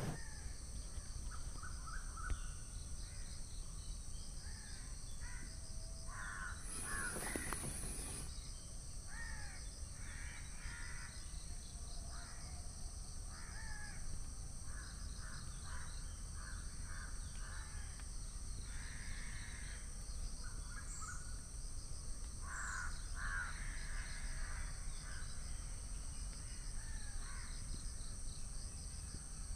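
Birds cawing again and again, over a steady high-pitched whine.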